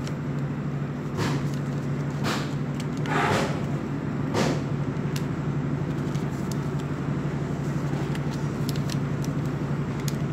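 A sheet of A4 paper rustling and crinkling as it is folded and creased by hand. There are a few louder rustles in the first four or five seconds and lighter ticks after, over a steady low hum.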